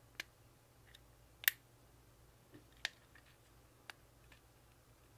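A few short, sharp clicks of a steel punch prying the sear housing out of a Taurus G3 pistol's polymer frame, the loudest about a second and a half in.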